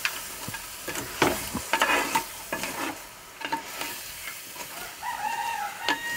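Crab roast sizzling in a clay pot while a spatula stirs it, with repeated scraping and knocking against the pot and the crab shells. Near the end there is a short pitched call in the background.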